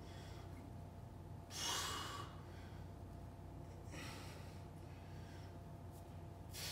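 A man breathing hard through his mouth while doing leg raises: three short, forceful breaths about two and a half seconds apart, the first the loudest, over a faint steady hum.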